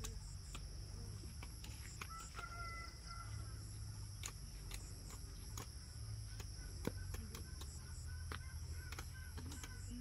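Chickens clucking and calling in short bursts, over a steady high insect drone.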